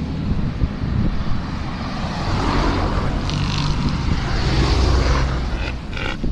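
A motor vehicle passing on the road, a low engine hum with tyre noise that swells to its loudest about five seconds in and then fades.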